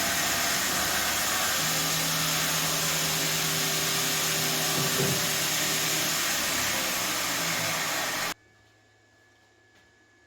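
A grinding machine runs steadily as one face of a Damascus steel billet is ground flat. The loud grinding noise cuts off abruptly about eight seconds in, leaving near silence with a faint hum.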